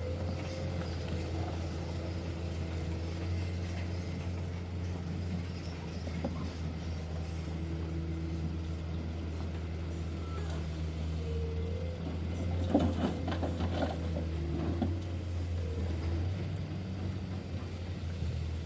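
Heavy diesel engines of dump trucks and loading machinery running steadily with a deep rumble. A short burst of clattering knocks comes about thirteen seconds in.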